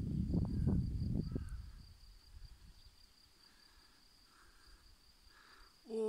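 Wind buffeting the microphone for about the first two seconds, then a quiet meadow with a steady high-pitched insect chirring, such as crickets or grasshoppers.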